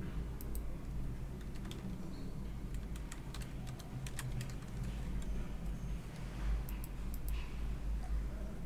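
Typing on a computer keyboard: a short, uneven run of keystrokes, then a few more clicks later on, over a steady low hum.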